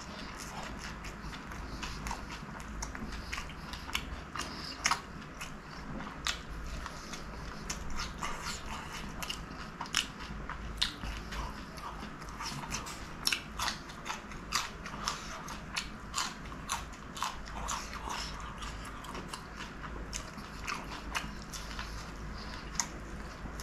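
Close-miked chewing and biting of chicken samosa pastry and a raw green chilli, with many sharp, irregular crunches and crackles throughout.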